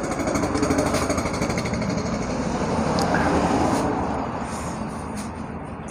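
Rattling motor vehicle engine passing on the road, swelling up, peaking about three seconds in, then fading.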